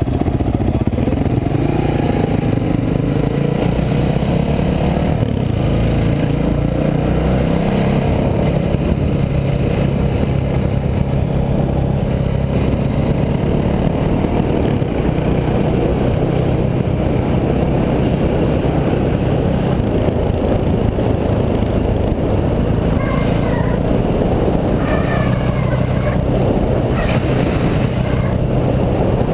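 Dirt bike engine running steadily under way, a continuous loud engine drone.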